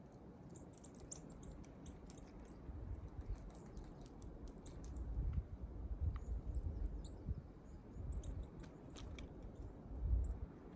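Small wild birds at a feeding spot: a scatter of quick pecking ticks and short high chirps, with irregular dull low thumps, the loudest about ten seconds in.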